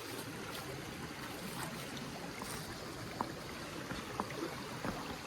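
Spring water running steadily, with a few light clicks over it.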